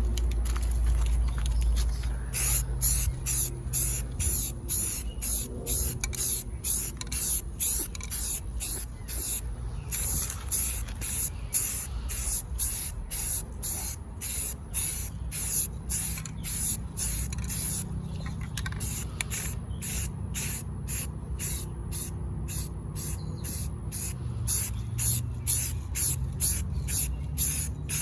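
Aerosol spray paint can being sprayed onto a plastic truck center console in short, quick passes, about two hissing puffs a second, with a couple of brief pauses.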